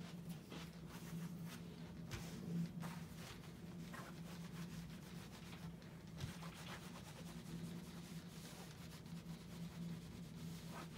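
An electric clothes iron sliding back and forth over white cotton pants on a padded ironing board, used dry without steam: faint, irregular rubbing strokes over a steady low hum.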